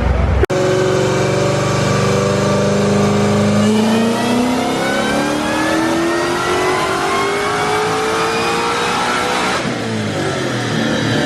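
Supercharged Mustang engine making a full-throttle pull on a chassis dyno: after a short break about half a second in, it holds a steady note, then from about four seconds climbs in pitch for some six seconds, with the blower's whine rising alongside. Near the end it drops off suddenly as the throttle is lifted.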